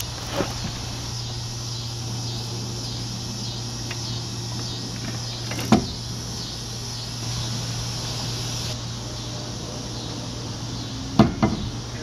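Insects chirping steadily in the background over a steady low hum, with one sharp knock a little before the middle and a short cluster of knocks near the end.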